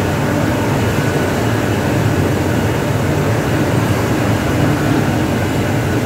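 Steady, loud mechanical drone with an even hiss above it, unchanging throughout.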